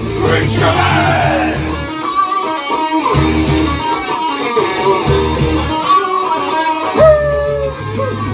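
Loud guitar-driven rock music, with strummed guitar over a steady, repeating bass line.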